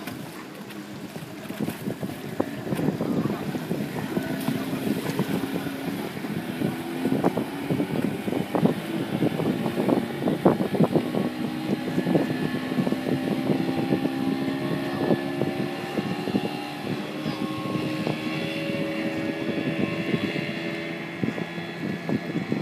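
Motorboat engine of a Vigilant 18 aluminium workboat running at speed, a steady drone with slowly drifting pitch, over wind buffeting on the microphone and water noise.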